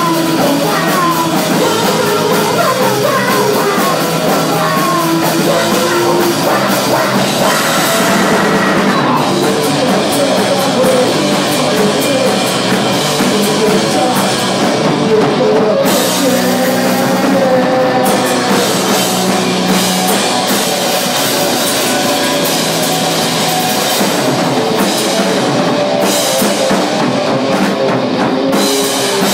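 A rock band playing live in a small rehearsal room: electric guitar, bass guitar and drum kit together, loud and continuous, with a voice singing at times.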